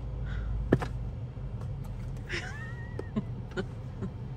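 Car engine idling as a steady low hum inside the cabin, with a sharp click a little under a second in and a few lighter clicks later as a cardboard product box is handled.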